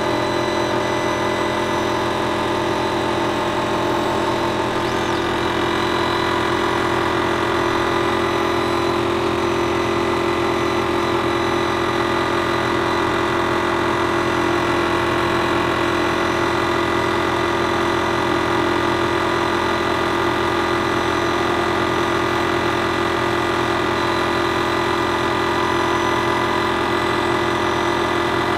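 Dremel Digilab LC40 laser cutter running a cut through cardboard: a steady, even mechanical hum that does not change.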